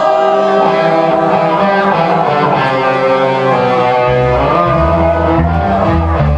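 Rockabilly band playing live with no vocals: electric guitar playing sustained, bending notes, with the bass coming in strongly about four seconds in.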